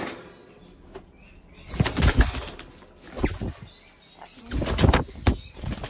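African grey parrot, held in someone's hands, beating its wings in two loud flurries of rapid wingbeats, about two seconds in and again near the end, as it struggles against being held.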